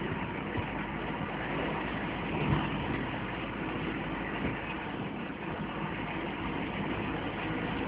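Steady engine and road noise from a moving vehicle, with a brief knock about two and a half seconds in.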